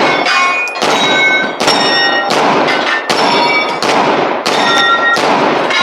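Rapid string of gunshots, each followed by the ringing clang of a steel target plate being hit, roughly a shot every half to three-quarters of a second.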